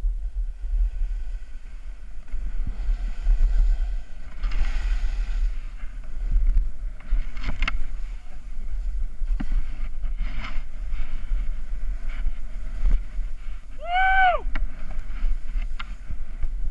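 Wind buffeting the microphone of a chest-mounted action camera as a snowboard slides and scrapes down steep snow. About 14 s in, a short high call rises and falls in pitch.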